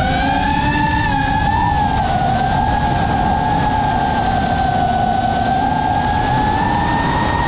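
GEPRC Mark5 FPV quadcopter's brushless motors and propellers whining over a rush of wind. The pitch rises as the throttle comes up near the start, then holds fairly steady with small dips and swells.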